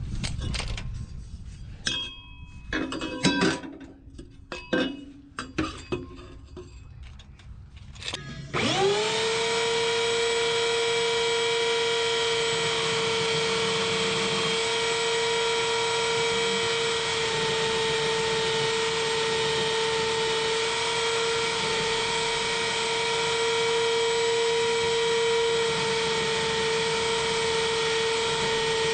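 Scattered clanks and knocks of handling, then about eight seconds in a power tool's motor starts, spins up within a moment to a steady high whine and runs evenly for the rest of the time.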